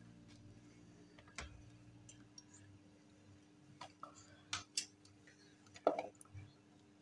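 Knife cutting unripe plantain into small pieces: a few scattered faint clicks and taps, the loudest about six seconds in, over a faint steady hum.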